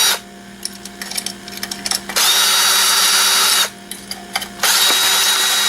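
Power drill running in short bursts of about a second and a half each, with a steady high whine, backing out screws; small clicks and rattles of parts between the bursts.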